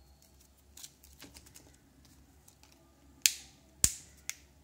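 Handling noise from a smartphone being turned over in the hands: a few faint ticks and rustles, then three sharp clicks about three seconds in, roughly half a second apart, the last one softer.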